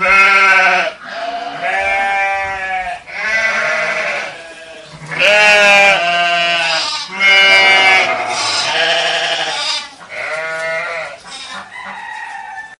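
Sheep bleating repeatedly: about eight quavering calls, each around a second long.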